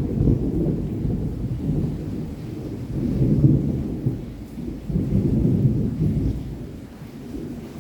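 Distant thunder rumbling in low, rolling swells over steady rain, dying down near the end.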